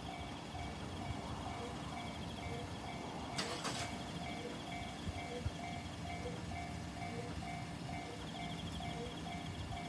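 Japanese railroad crossing warning bell ringing, an electronic clanging tone repeating evenly a bit more than once a second. A brief crackling noise comes about three and a half seconds in.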